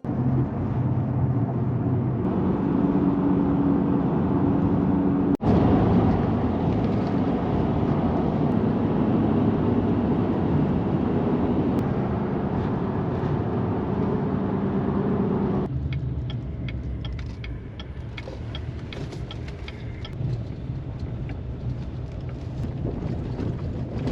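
Motor vehicle running and driving, a steady engine drone with road or wind noise. It breaks off sharply about five seconds in, then goes on. From about sixteen seconds it turns quieter and thinner, with scattered light ticks.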